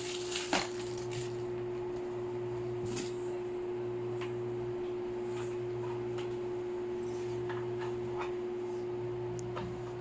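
A steady low electrical hum with a few light clicks and taps scattered through it, as from handling a plastic appliance.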